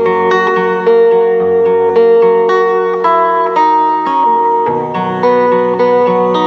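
Guitar playing an instrumental passage, picked notes ringing on over one another and changing every half second or so.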